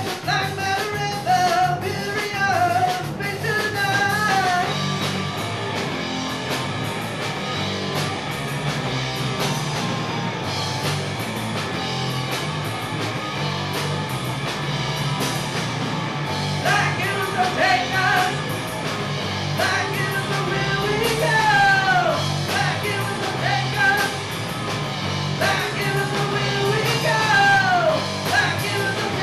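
Rock band playing: electric guitar, bass and drum kit, with a singer's voice over the top for the first few seconds and again through the second half.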